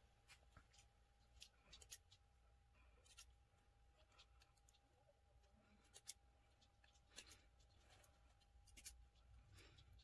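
Faint, scattered snips and ticks of small scissors cutting the stitches of a knit dress's seam to unpick it, over near silence.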